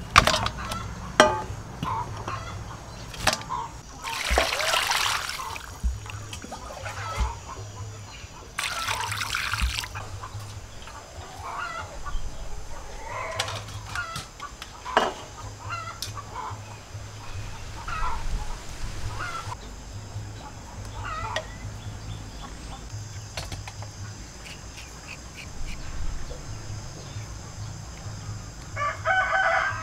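Chickens clucking in the background over the clinks and knocks of stainless steel bowls, with two rushes of water poured into the basin about four and nine seconds in, as raw chicken heads are washed. A rooster crows near the end.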